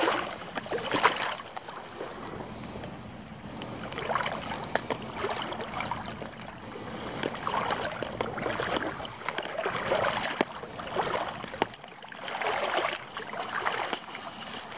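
Legs wading through shallow, calm seawater: repeated sloshing swishes of water pushed aside, one every second or two.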